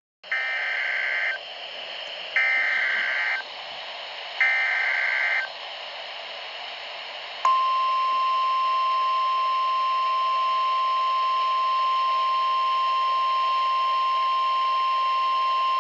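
Emergency Alert System tornado warning tones: three one-second bursts of buzzing SAME header data, about two seconds apart, over a steady hiss. After a pause comes a single long, steady attention tone.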